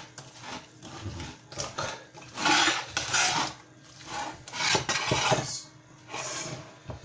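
Hands mixing sliced onion rings and fish pieces in a stainless steel pot: wet rustling and rubbing in several bursts.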